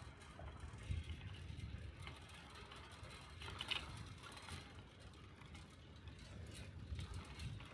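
Bicycle being ridden: a low steady rumble of wind and rolling tyres, with scattered light clicks and rattles from the bike.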